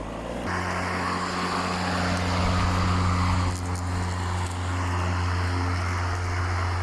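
WORX battery-powered lawnmower starting up about half a second in, its electric motor and blade then running at a steady hum with a rushing hiss.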